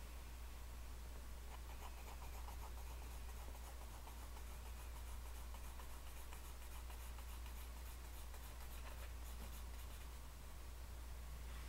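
Graphite pencil scratching over sketchbook paper in rapid back-and-forth shading strokes, easing off briefly near the end. A steady low hum runs underneath.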